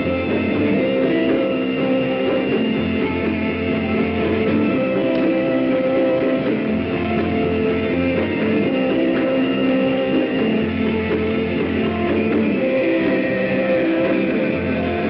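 Rock music led by electric guitar, without singing, over a bass line that changes note every second or two.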